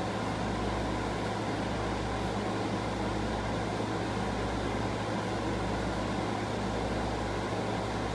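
Steady room noise: a constant low hum under an even hiss, with no distinct events.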